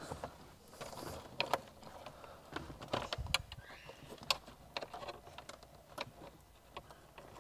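A Wi-Fi antenna cable is being fed by hand behind a car's plastic dashboard and glovebox trim: soft rustling with a few scattered light clicks and taps of plastic.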